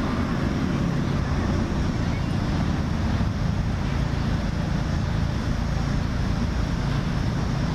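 Steady low rumble of outdoor background noise, without any distinct events.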